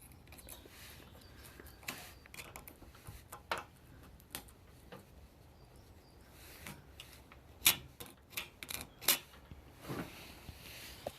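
Irregular sharp metal clicks and short scrapes of a hand tool working at a tight sealing ring in the bottom of an exhaust manifold, with a few louder knocks in the second half.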